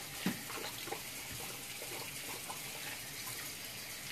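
Bathroom tap running into a sink while hands are washed under the stream: a steady rush of water with small splashes.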